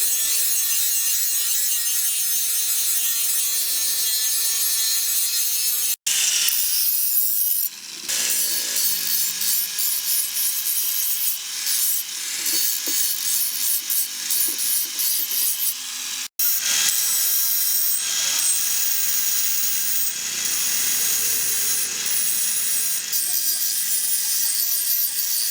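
A tool scraping against a steel knife blank, rasping in repeated strokes as the leaf-spring steel is shaped by hand. The sound changes abruptly twice, at edits.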